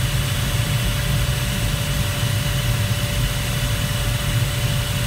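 Steady rushing airflow noise inside the cockpit of a Duo Discus glider flying fast, at about 180 km/h, with a low rumble and a thin steady tone running under it.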